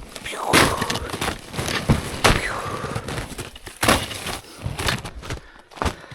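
Boots crunching and breaking through crusted snow in irregular steps on a steep climb, with the hiker's heavy breathing.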